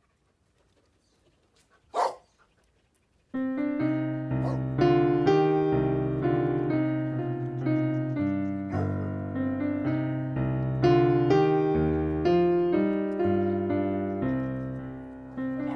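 A single short dog bark, then piano music that starts about three seconds in and goes on with slow, held chords.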